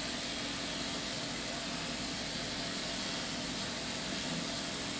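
Electric dog grooming clippers running with a steady hum while being worked through a cocker spaniel's coat.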